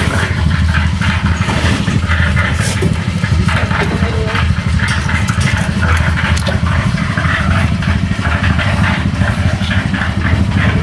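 A small engine running steadily, a low unbroken drone.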